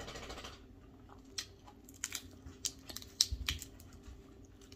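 Close-up chewing of crispy food: irregular sharp crunches and crackles, with a soft low thump about three seconds in.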